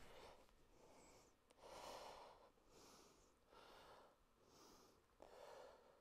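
A woman breathing slowly and audibly, a series of faint, soft breaths in and out roughly a second apart.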